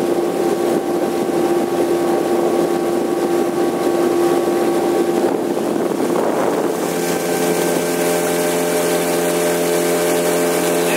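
Small boat's motor running steadily while under way. About two-thirds of the way through, the engine's hum changes abruptly to a different set of tones with more hiss.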